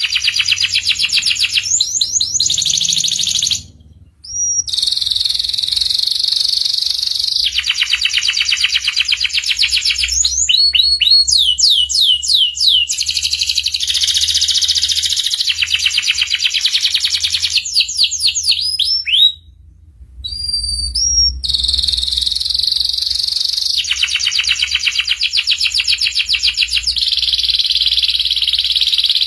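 Domestic canary singing long, rapid trills in fast runs, broken by a few sweeping whistled notes in the middle. The song stops briefly twice, about four seconds in and again near twenty seconds.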